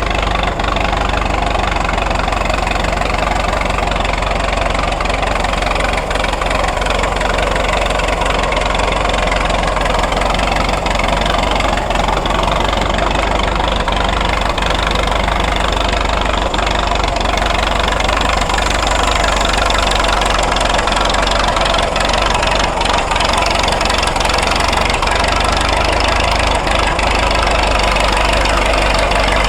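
Engine of a 1927 Fordson Good Roads road roller running steadily.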